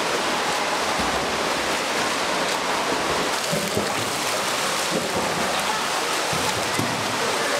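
Steady splashing and sloshing of swimming-pool water, stirred by a swimmer doing front crawl, in an indoor pool.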